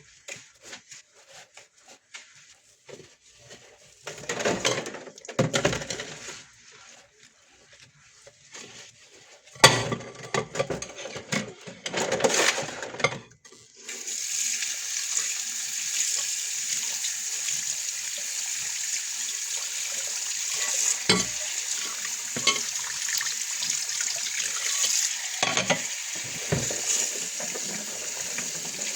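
Dishes and pots clattering and being scrubbed at a kitchen sink, in scattered bursts with short pauses. About halfway through, a tap is turned on and water runs steadily into the sink.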